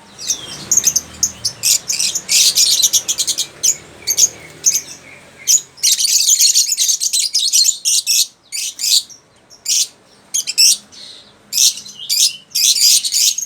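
Lovebirds chirping and squawking, in rapid, shrill, irregular bursts of high-pitched calls with short pauses between.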